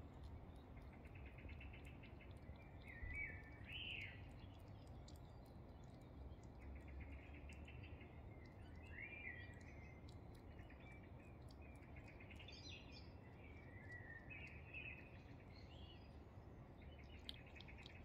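Faint birdsong: songbirds singing in short phrases of chirps and quick trills, with soft, quick clicks of a hedgehog chewing wet food from a dish.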